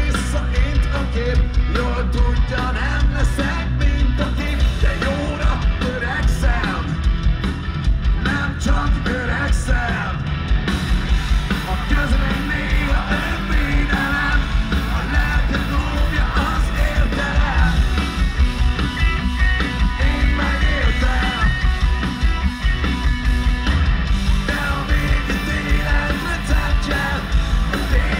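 Live heavy rock band playing loud through a concert PA, with distorted guitars, bass and drums and vocals, heard from the crowd with heavy, boomy bass.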